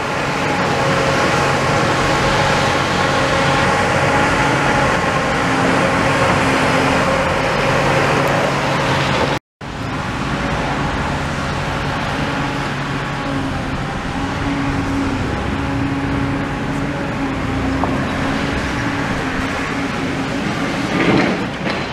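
The diesel engine of a demolition excavator running steadily, a continuous pitched hum over a rumbling haze. The sound cuts out briefly a little under halfway through, then the engine hum resumes.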